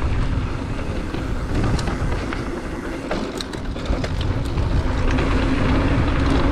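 Wind rushing over the camera's microphone while a GT Fury downhill mountain bike runs fast down a dirt jump trail, its knobby tyres rolling on hard-packed dirt and loose gravel. A run of sharp clicks and rattles from the bike comes around the middle.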